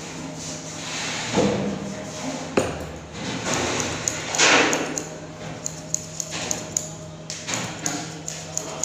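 Room clatter: scattered light clinks and knocks and a few short swishing swells over a steady low hum, with small ticks coming more often in the second half.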